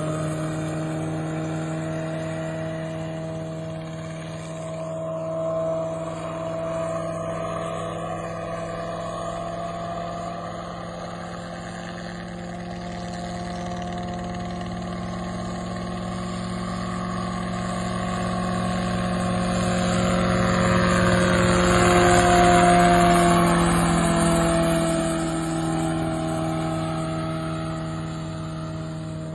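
Small open-frame single-seat helicopter in flight, its engine and rotor running steadily. It grows louder as it comes closer about twenty seconds in, the pitch dropping as it passes, then fades away.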